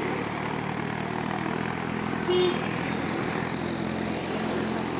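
Heavy tipper truck's diesel engine running steadily, with a brief high-pitched beep about two seconds in.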